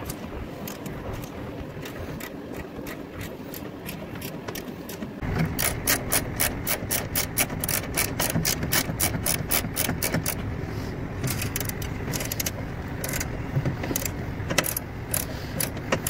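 Hand socket ratchet clicking in quick runs as it tightens the mounting nuts of a replacement dryer blower motor. The clicks are faint at first and grow louder and denser about five seconds in.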